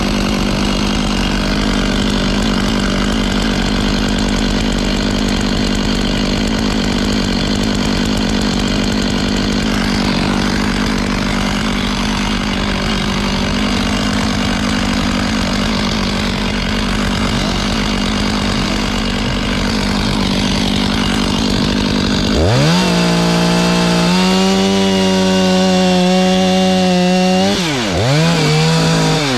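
Two-stroke chainsaw running steadily. About 22 seconds in, a saw revs from idle up to full throttle and holds there. Near the end the throttle drops off and is blipped back up twice.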